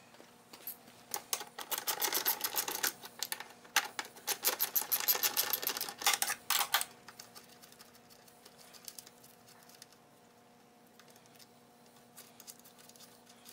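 Quick runs of rapid clicking for about six seconds, then only a few faint clicks, from hand-tool work on the seat-hinge fasteners of a Honda CT70 as the seat is taken off. A faint steady hum runs underneath.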